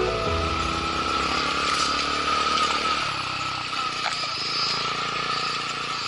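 Honda Grom's small single-cylinder motorcycle engine running on the move, with road and wind noise and a steady high tone throughout.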